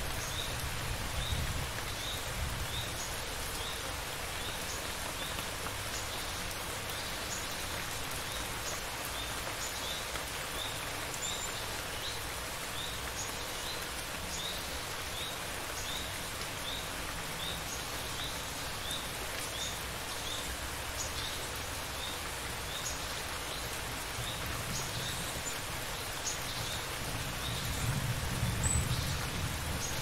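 Steady rain falling, with a high chirp repeating a bit more than once a second. Low thunder rumbles at the start, dies away within a second or two, and rumbles again, building, near the end.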